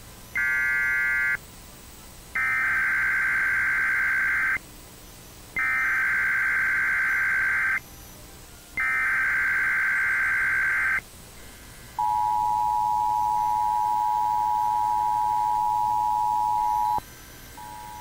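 Emergency Alert System SAME header for a Child Abduction Emergency (Amber Alert): three screechy bursts of digital data tones, about two seconds each, a second apart. They are followed by the EAS two-tone attention signal, two close steady tones held for about five seconds, which cuts off and comes back fainter near the end.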